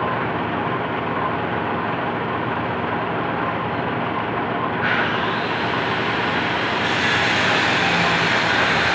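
Metal lathe running while a drill in a tailstock chuck cuts a centre hole into the end of a rotating shaft, a steady machine hum with cutting noise. The cutting grows brighter and slightly louder about five seconds in, and again near the end.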